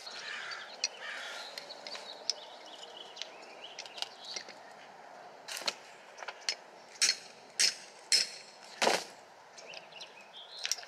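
A hammer striking a TEMCo TH0007 hammer-type lug crimper, crimping a copper 2/0 lug onto welding cable. About five sharp blows come in the second half, after some faint handling sounds.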